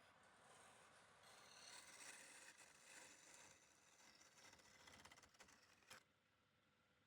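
Near silence: a faint scraping hiss that stops suddenly about six seconds in.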